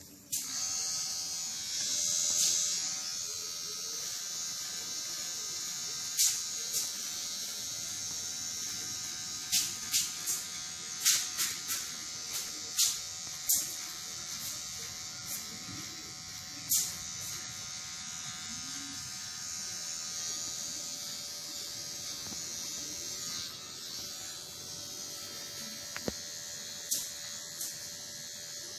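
Kemei KM-2850 electric hair clipper switched on just after the start and running steadily with a constant hum while cutting hair, with short sharp clicks scattered through the middle and again near the end.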